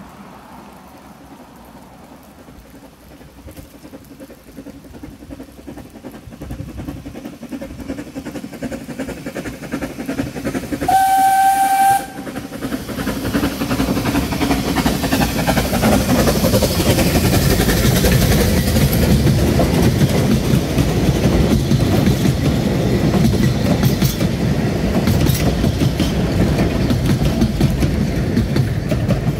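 Narrow-gauge steam locomotive Welsh Pony approaching with its train, growing steadily louder. About eleven seconds in it gives one whistle blast lasting about a second. It then runs past close by with its coaches, loud and steady for the rest of the time.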